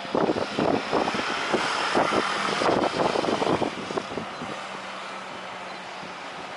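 Jet airliner engine noise with wind buffeting the microphone in irregular gusts. It eases a little over the second half.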